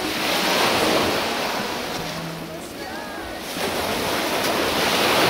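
Sea surf washing onto the shore, two swells of breaking waves, the second building toward the end.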